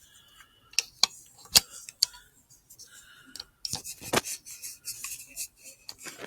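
Squirrel feeding at a bird table: a run of sharp, irregular clicks and cracks of seeds or nuts being gnawed and split, the loudest crack about a second and a half in and a quick cluster of them near the middle.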